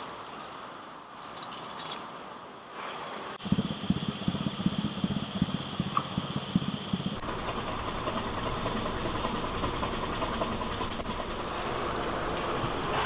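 Busy fish-market din of engines and machinery running, with a steady mechanical noise. It changes abruptly about three and a half seconds in to a louder, pulsing rumble, then about seven seconds in to an even, steady noise.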